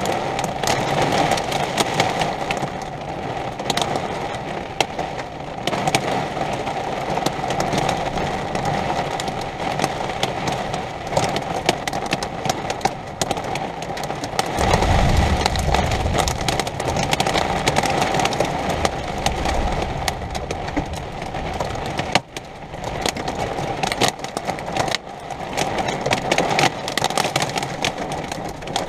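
Heavy storm rain beating down, a steady hiss made up of countless small hits. A deep rumble of thunder swells up about fifteen seconds in and rolls on for several seconds.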